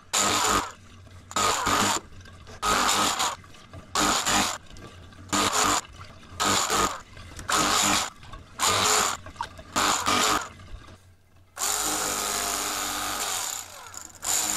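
Small electric motor, most likely an electric fillet knife, run in about ten short bursts of roughly half a second each at an even pace, then for a longer stretch of about two seconds near the end.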